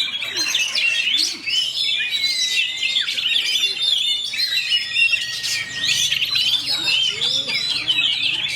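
Oriental magpie-robin (kacer) singing a fast, dense, unbroken run of quick chirps and whistles.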